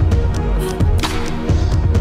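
Background music with a steady beat, a low beat about twice a second under sustained notes, and a sharp hit about a second in.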